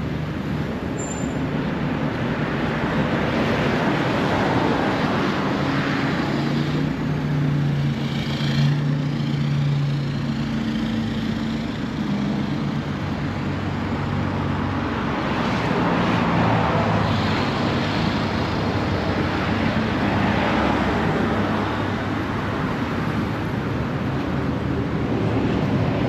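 Road traffic noise: a car's engine hum and tyre noise on the road, swelling and fading a few times.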